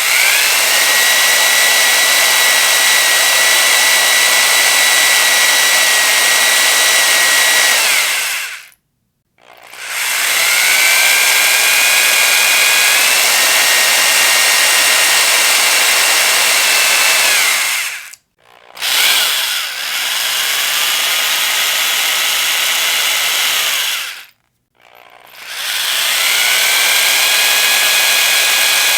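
Electric power drill running at full speed in runs of about eight seconds. Its motor whine rises in pitch each time it spins up. It stops briefly three times and starts again.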